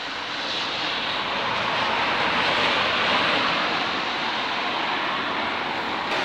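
A passing vehicle: a rushing noise that builds over about three seconds and then eases slightly.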